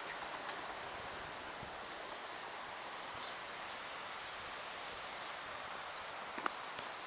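Steady outdoor background noise, an even hiss, with a faint tick about half a second in and a small knock about six and a half seconds in.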